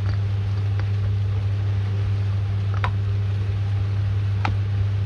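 A steady low hum with three short, faint clicks spread through it.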